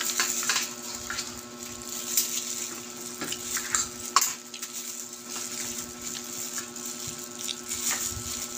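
A person eating chicken curry up close: chewing and mouth noises with scattered light clicks and taps, over a steady background hum.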